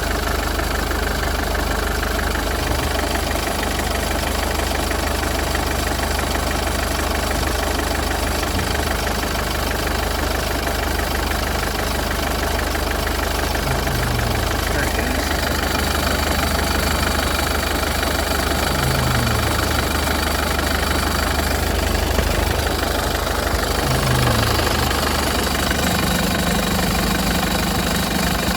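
Mercedes-Benz OM651 four-cylinder diesel idling steadily. From about halfway through, a short, low sound that falls in pitch repeats about every five seconds over the idle: a strange sound that comes some time after a start, repeats five or six times and then stops, of unknown cause.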